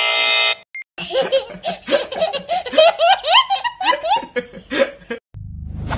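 A steady wrong-answer buzzer tone cuts off in the first second, followed by a toddler's belly laugh in quick bursts lasting about four seconds. A whoosh sound effect starts near the end.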